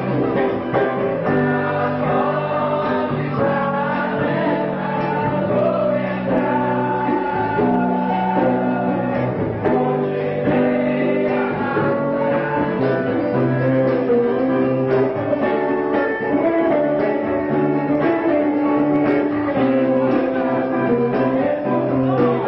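Live acoustic music: men singing into microphones with guitar accompaniment.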